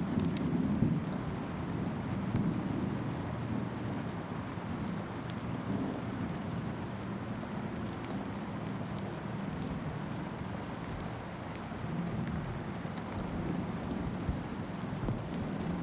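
Steady rain with scattered drop ticks over a low rumble of distant thunder that swells now and then.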